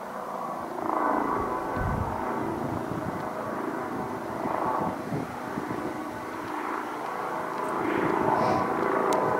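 Twin-turbine Eurocopter EC135 helicopter flying overhead: a steady whine and rotor drone that swells and fades a few times, loudest near the end.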